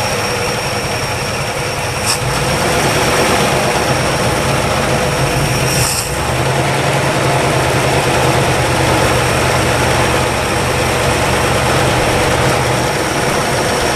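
1962 Chevrolet engine idling steadily while warming up after sitting 35 years, a little louder from about two seconds in. There are brief clicks about two and six seconds in.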